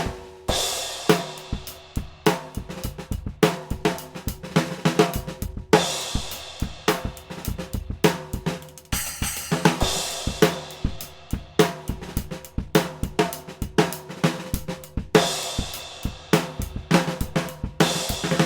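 Full drum kit playing a steady groove built around a NOAH DC 14x6-inch snare drum, with bass drum and hi-hat under it. A crash cymbal rings out several times, every few seconds.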